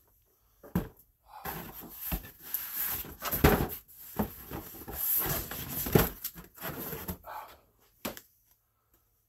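Boxed action figures in cardboard-and-plastic window packaging being shuffled and handled: rustling and crinkling with several knocks, loudest about three and a half and six seconds in.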